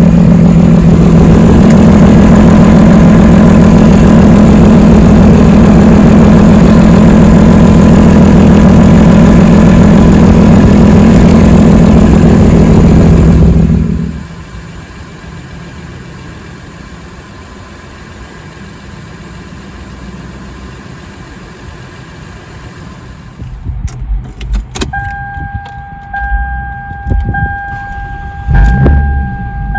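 Car engine running with an exhaust leak, very loud for about the first fourteen seconds, then much quieter. Near the end come a few clicks and a steady electronic warning chime.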